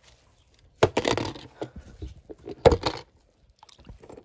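Water splashing twice in a plastic tub, about two seconds apart, as a hand plunges into it.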